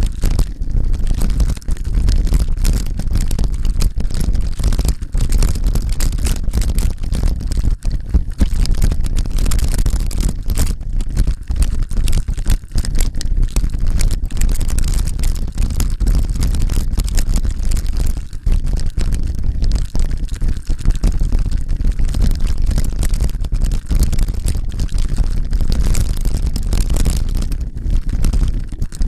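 Loud, continuous low rumble of wind buffeting the microphone, its level fluctuating rapidly.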